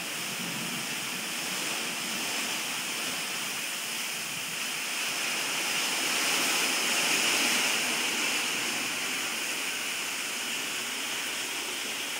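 Heavy thunderstorm rain pouring down, a steady hiss that swells a little midway.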